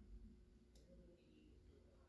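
Near silence: faint room tone with a steady low hum and one faint click about three-quarters of a second in.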